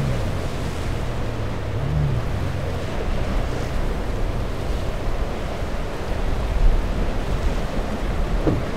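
Surf breaking and washing around a boat in the shallows, with wind buffeting the microphone. The boat's outboard engines rev up and back down briefly twice in the first couple of seconds.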